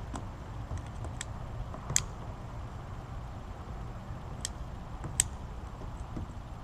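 A handful of light, irregular plastic clicks and taps as a PVC pipe is pushed down into a plastic kayak's scupper hole, over a steady low hum.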